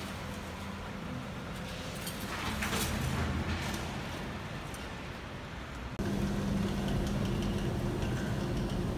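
Volvo wheel loader's diesel engine running as it pushes garbage, with scraping and rattling about two seconds in. About six seconds in the sound changes abruptly to a steadier, louder machinery hum with a low drone.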